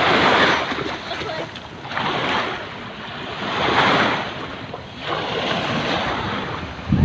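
Sea waves washing onto a shore, surging in about every two seconds, four times.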